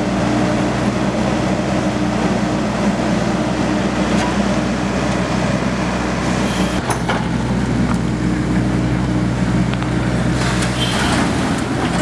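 Diesel engine of a Hyundai 55-9 mini excavator running steadily under work, with a few scrapes and clanks from the digging partway through.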